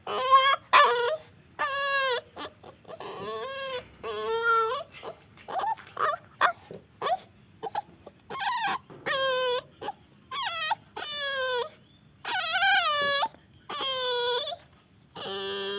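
A puppy whining and crying in a long series of short, high whimpers, about one a second, each rising and falling in pitch.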